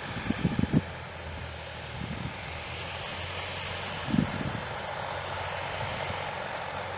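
Cessna 172R Skyhawk's four-cylinder Lycoming engine and propeller running at taxi power: a steady low hum with a propeller hiss that swells about halfway through. A few low thumps come near the start and again about four seconds in.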